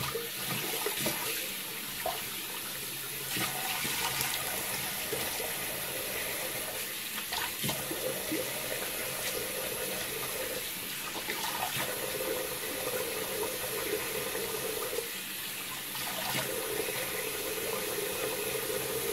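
Bathroom tap running steadily into a sink, with splashes as water is scooped up to rinse a facial scrub off the face.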